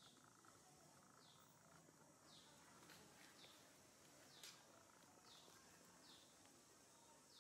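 Faint natural ambience: a bird repeating a short, high, falling chirp about once a second over a steady faint insect hum, with a couple of soft clicks.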